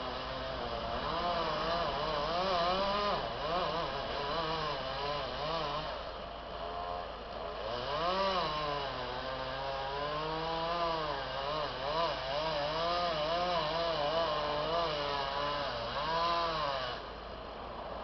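Chainsaw engine running at high revs, its pitch rising and dipping again and again as it cuts and bogs, then dropping away shortly before the end.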